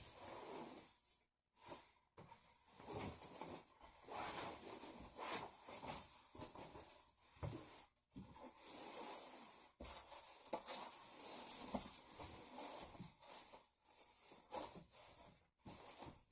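Faint, irregular rustling and scraping of material being handled, with a few light clicks.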